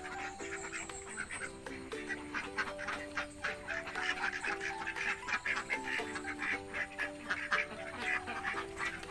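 A flock of laying ducks quacking, many short overlapping calls, over background music with a simple stepping melody.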